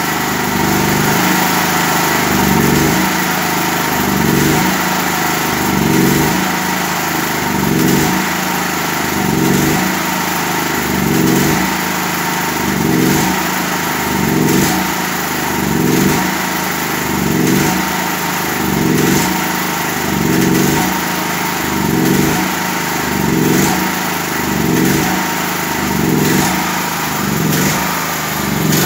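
Grip 5.5 kVA petrol generator's 13 hp single-cylinder engine running, its sound rising and falling in a regular surge about every second and a half. The fuel valve is closed, so it is running on the fuel left in the carburettor bowl.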